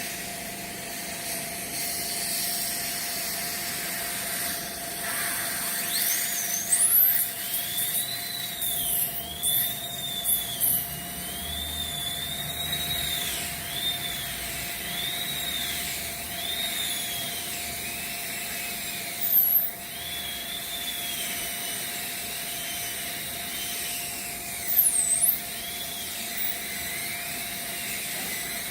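Dentist's high-speed drill whining, its pitch repeatedly dipping and recovering as it bears on the tooth, over a steady hiss. A few brief louder squeals come about a quarter of the way in, midway and near the end.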